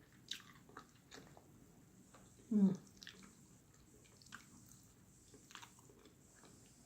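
A person chewing food close to the microphone, with scattered short wet mouth clicks and smacks. A brief hummed 'mm' comes about two and a half seconds in.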